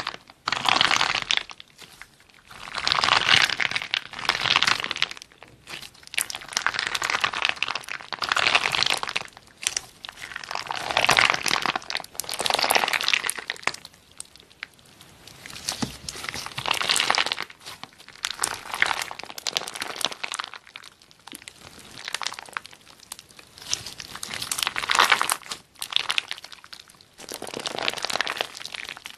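Clear slime packed with glitter-covered beads being squeezed and stretched by hand, crackling and popping in repeated bursts of a second or two with short pauses between.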